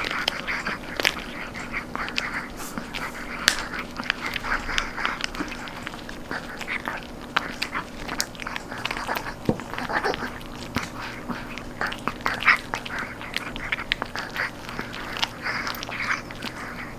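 A Chihuahua gnawing a crunchy dried duck knee-cartilage treat, holding it under a paw. The result is a constant stream of irregular crisp crunches and cracks, with a few louder snaps.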